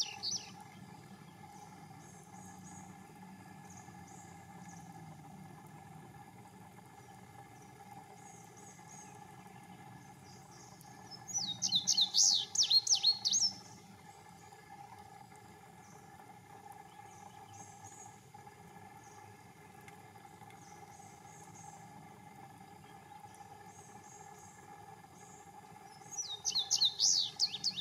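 Male indigo bunting singing: a two-second song of quick, high paired notes about eleven seconds in, and another starting near the end. Faint high chirps and a steady faint hum fill the gaps between songs.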